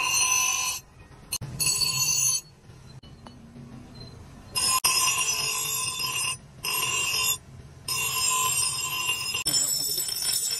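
Steel axe head ground against a spinning abrasive wheel on an electric grinder, in repeated passes of a second or two each: a high ringing whine while the blade is on the wheel, dropping back to the motor's low hum each time it is lifted off.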